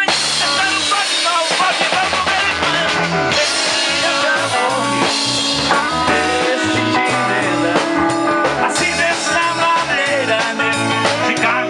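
Live amplified rock band playing: electric guitar and drum kit through PA speakers, with a man singing into a microphone over a low bass line.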